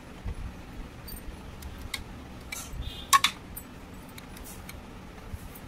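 Small plastic toy dishes and containers in a toy kitchen cupboard clicking and tapping as they are handled, with a few light clicks and a louder pair about three seconds in.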